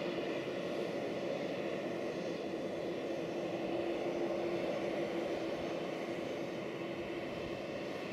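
Boeing 737 airliner's turbofan engines running at low taxi thrust as it rolls along the runway: a steady rumble with a held whine over it.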